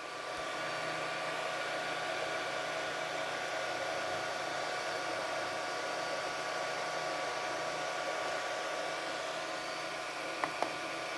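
Ender 3 V2 3D printer running a print: a steady whir of its fans with several steady whining tones over it. Two quick clicks about ten and a half seconds in.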